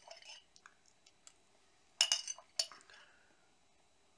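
A spoon clinking and scraping against a dish as applesauce is scooped up: a few light clinks at the start, a sharper cluster of clinks about two seconds in, then quiet.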